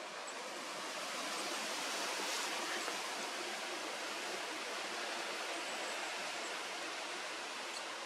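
Steady, even background hiss that swells slightly about two seconds in, with no clear birdsong.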